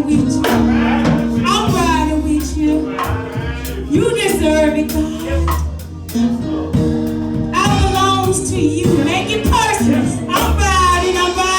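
A song playing: a voice singing over steady bass notes and a drum beat.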